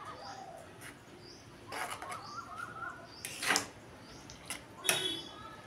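A flat spatula stirring wet chopped banana flower in a steel kadai, scraping and knocking against the pan three times. A small bird chirps repeatedly in the background, a short high chirp every half second or so.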